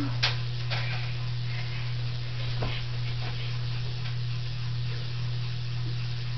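Steady low electrical hum, with a few faint clicks and rustles.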